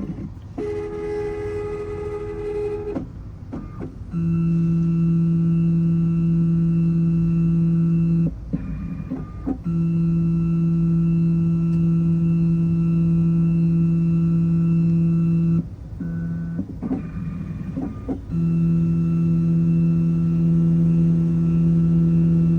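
Computerized key-cutting machine running its automatic jaw calibration. Its motors whine at a steady pitch in stretches of several seconds, broken by short pauses, with a shorter, higher-pitched whir about a second in.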